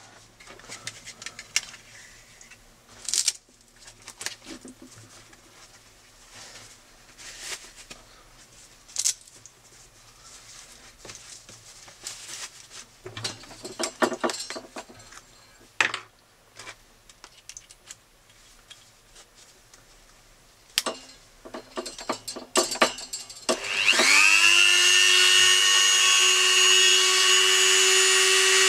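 Scattered clicks and rustles of small things being handled, then about 24 s in a rotary tool fitted with a cut-off disc starts up. It runs with a high whine that rises to a steady pitch.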